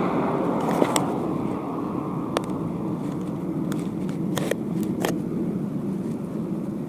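Riding noise of a bicycle on asphalt: a steady rush of tyre and wind noise, broken by about five sharp clicks and rattles from the bike.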